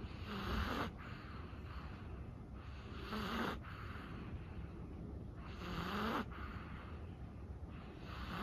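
A sleeping Chihuahua breathing and snoring softly: a slow, even rhythm of noisy breaths about every two and a half to three seconds, each carrying a low snore.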